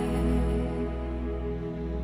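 Background music: held notes over a steady deep bass tone.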